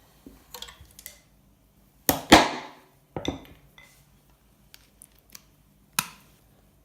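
Sharp metal clanks and knocks from tools and metal parts on a workbench, a loud pair about two seconds in that ring on briefly, with one more near three seconds and another near six, between light clicks of handling.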